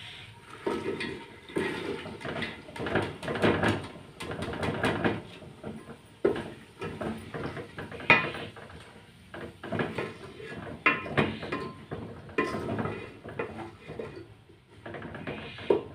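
Chopped potatoes and radish pods tumbling into a large metal cooking pot, then a long spoon scraping and knocking against the pot in irregular strokes as they are stirred.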